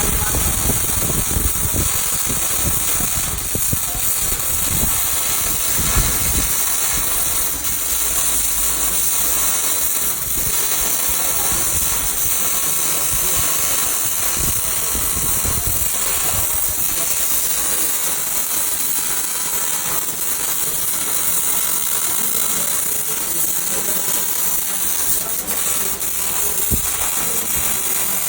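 Electric arc welding: a steady crackling hiss from the arc, with scattered small pops.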